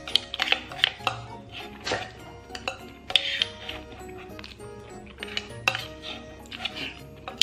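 Spoon scraping and clicking against the inside of a bento box, scooping up fried rice in repeated short strokes.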